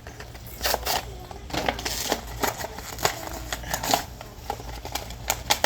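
Plastic and card packaging of a toy die-cast car crackling and snapping as it is opened, a run of irregular sharp clicks and rustles.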